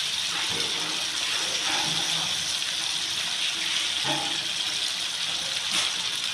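Steady sizzling of sliced carrots and vegetables frying in a wok, an even hiss, as hot tomato sauce is squeezed in over them.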